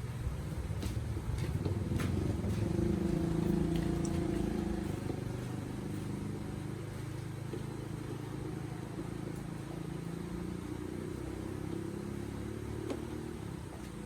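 Small motorbike engine running, swelling a little louder about two seconds in and then settling to a steady idle.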